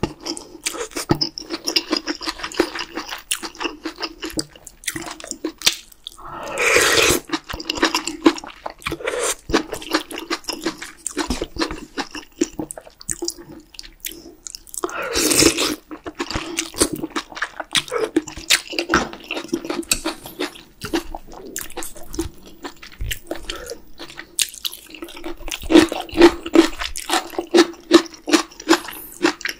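Close-miked eating of spicy beef soup with noodles: wet chewing and smacking with many small clicks, and two long slurps of noodles and broth, about 7 and 15 seconds in.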